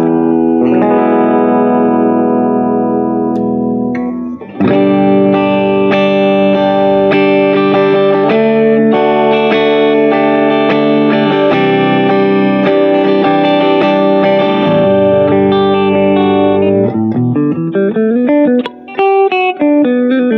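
AIERSI LP19 single-cutaway electric guitar with humbucking pickups, played through an amplifier. Full chords are struck and left to ring for several seconds each, changing every few seconds. Near the end it breaks into a quick run of single notes.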